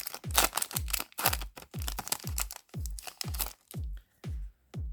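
Background electronic music with a steady kick-drum beat, about two beats a second, and crisp high percussion ticks between the beats.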